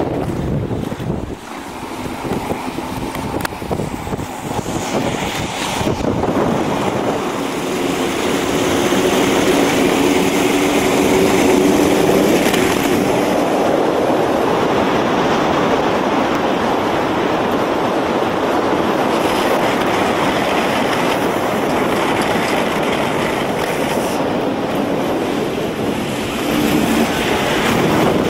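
Roller skate wheels rolling fast over asphalt, a steady rough roar mixed with wind buffeting the microphone. It grows louder over the first several seconds, then holds.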